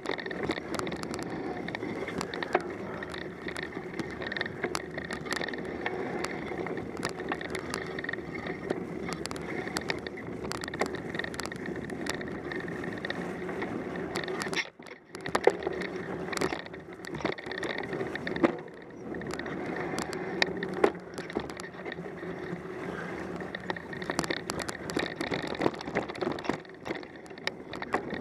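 Mountain bike ridden along a snow-dusted, leaf-covered dirt trail: steady tyre and drivetrain noise with frequent rattles and knocks over bumps, dropping out briefly about fifteen seconds in.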